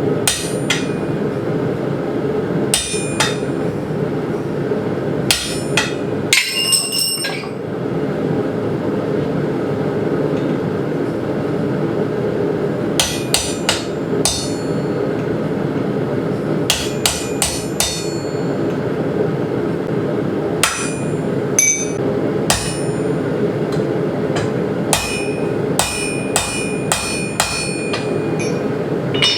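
Hammer blows on steel, ringing metallically, coming in runs of several quick strikes separated by pauses, over a steady roar.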